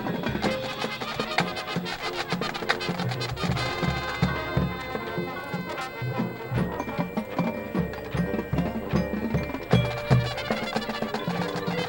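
Marching band playing: drums and percussion striking over held wind and brass notes.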